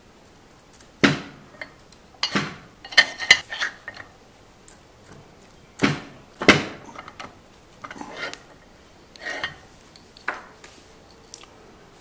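Irregular sharp metal clinks and knocks from a small rack-and-pinion arbor press and a brass hose-end fitting being handled and pressed, as a 3D-printed plastic grip is pushed onto the fitting. The loudest knocks come about three and six and a half seconds in.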